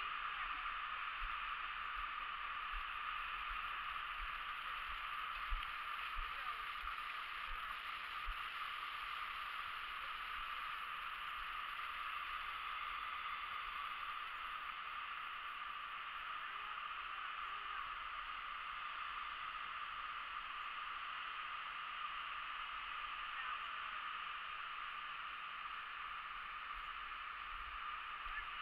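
Steady rushing of a fast, high-running river, an even hiss with no change, plus a few soft low bumps in the first several seconds.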